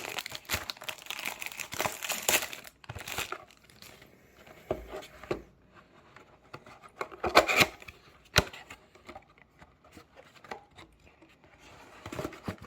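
Crinkling and tearing of the plastic and foil packaging of a Pokémon card box being opened by hand, in irregular bursts: a dense run of crackling at first, then sparser rustles, a loud crinkle a little past halfway and a sharp click soon after.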